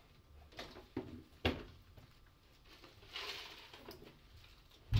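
Bible pages being leafed through and rustled, with a few short knocks and taps from handling the book, and a longer rustle about three seconds in.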